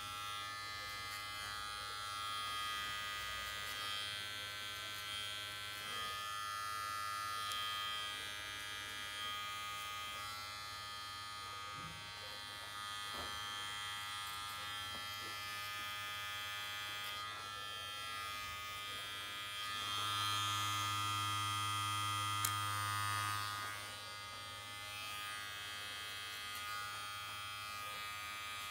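T-blade hair trimmer running with a steady buzz as it cuts short hair. It gets louder for about three seconds around two-thirds of the way through.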